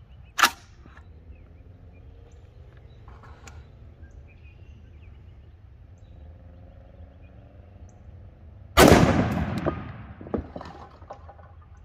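A single shot from a Ruger SFAR .308 semi-automatic rifle about nine seconds in, its bullet striking a steel brake rotor. The report dies away over about a second, with a few sharp metallic clicks after it; on gas setting 3 the rifle cycles a fresh round. A short click comes near the start.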